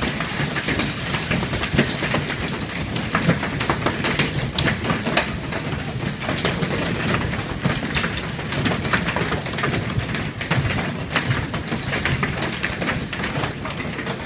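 Hail pelting office windows, heard from inside: a steady, dense clatter of countless small hits on the glass, mixed with the hiss of heavy storm rain.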